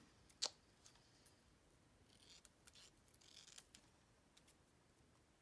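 Scissors snipping paper: a few quiet cuts, the sharpest a crisp snip about half a second in, then a handful of softer snips and paper rustles a couple of seconds later.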